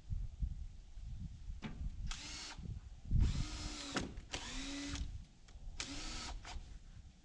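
Cordless drill running in four short bursts, each spinning up and winding down, as it drives fasteners into the sliding barn door hardware.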